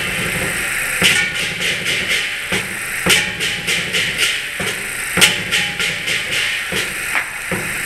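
Chinese lion dance percussion band playing: drum beats with repeated crashing cymbal strikes and a few stronger accents, keeping up a driving rhythm for the dancing lions.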